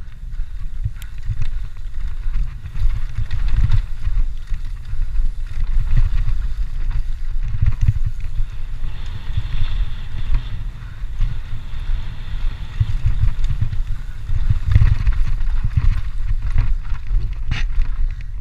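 Mountain bike riding fast down a dirt singletrack: gusting wind noise on the camera microphone over the rumble of the tyres on dirt. A few sharp clicks and rattles from the bike.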